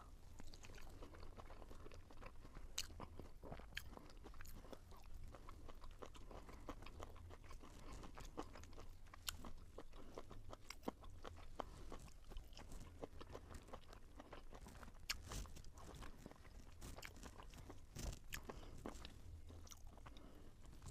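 Close-up eating sounds: someone biting and chewing crunchy food, with many sharp crackles and crunches several times a second.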